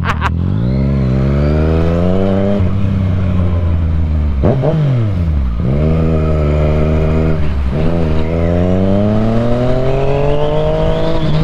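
Yamaha FZ-09's inline-three engine accelerating through the gears. The revs climb, drop at a gear change about two and a half seconds in, sag and climb again around the middle, drop at another shift about seven and a half seconds in, then rise steadily.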